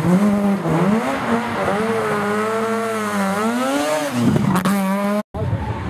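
Rally car engine revving, its pitch rising and falling several times and holding steady between. The sound breaks off for an instant near the end.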